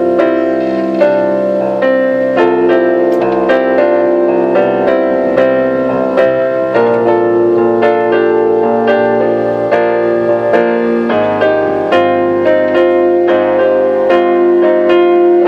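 Piano playing a slow ballad passage alone, with chords and a melody line struck a few notes a second and no singing.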